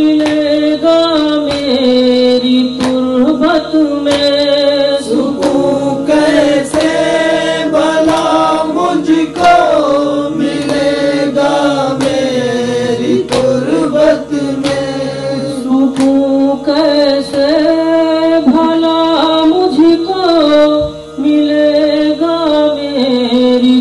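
Male voice chanting a slow, melismatic Urdu noha lament over a steady sustained drone, with more voices layered in for several seconds in the middle.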